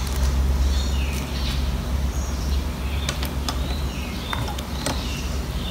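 Clear plastic binder sleeve pages crinkling and clicking as they are lifted and turned, a few sharp ticks scattered through, over a steady low rumble.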